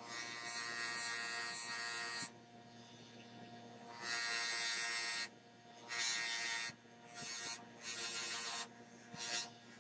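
Bench grinder running with a steady motor hum while a small metal watch part is pressed against its spinning wheel, each contact giving a hissing grinding burst. A long burst at the start and another about four seconds in, then shorter, quicker touches toward the end.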